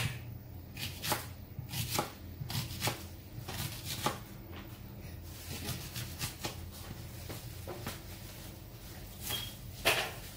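Chef's knife slicing an onion on a wooden cutting board: a series of short knocks as the blade strikes the board, about two a second at first, sparser in the middle, with a few louder strokes near the end.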